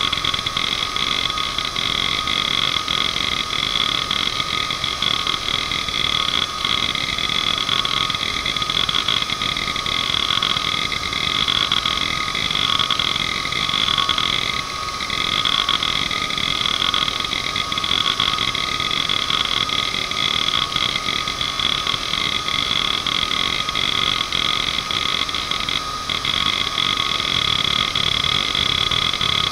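Toshiba MK2326FC 2.5-inch three-platter hard drive seeking under a test pattern: rapid clicking and chattering from the head actuator over the steady whine of the spinning platters. Through the middle stretch the whine pulses about once a second.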